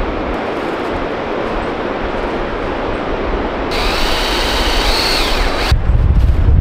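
Cordless drill boring a tap hole into a sugar maple trunk: the motor whines for about two seconds, its pitch dropping as it stops. Before it a steady rushing noise, and after it wind rumbling on the microphone.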